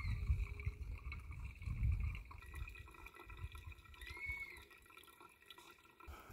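Hot water from an electric kettle pouring in a thin stream onto coffee grounds in a pour-over dripper, trickling and dripping.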